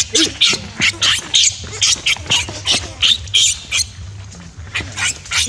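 Baby macaque screaming in short, sharp high-pitched shrieks, about three a second with a brief lull near the end, in distress as its mother pins it down and handles it roughly.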